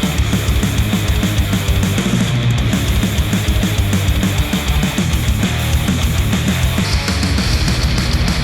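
Recorded music with a fast, steady drum beat, played back through headphones and picked up by microphones.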